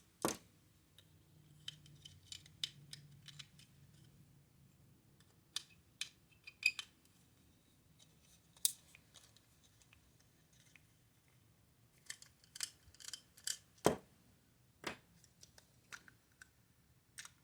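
Small plastic toy being taken apart by hand: scattered light clicks, scrapes and taps of the plastic shell and small screws, with two sharper knocks about a second apart near the end.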